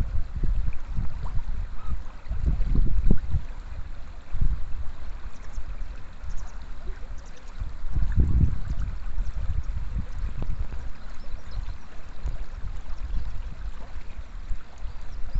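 Water running over a shallow, stony stream bed, with gusts of wind rumbling on the microphone that rise and fall irregularly, strongest about three seconds in and again past halfway.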